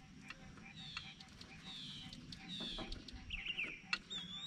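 Birds singing in the background: several short whistled calls that slide downward, a quick run of chirps about three seconds in, and a held whistle near the end, with a few faint clicks.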